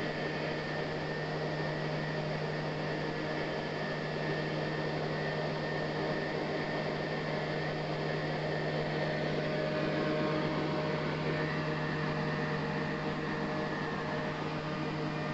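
Homemade knife grinder's electric motor and wheel running steadily with an even hum.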